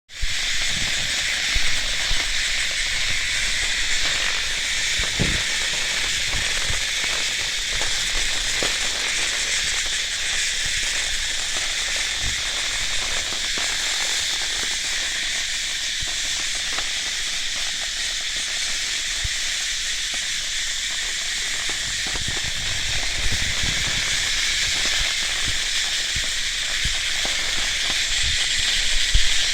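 Cicadas droning: a loud, steady, high-pitched buzz that holds without a break.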